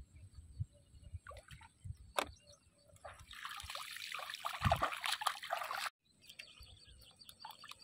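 Bare feet splashing and sloshing through shallow water for about three seconds, starting about three seconds in and cutting off suddenly. Faint bird chirps follow.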